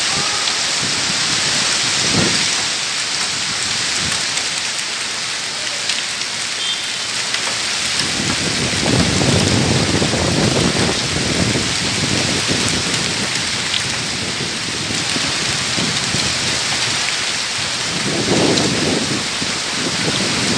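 Heavy rain mixed with hail pelting down steadily on a road and on vehicles. Low rumbles swell up about eight seconds in and again near the end.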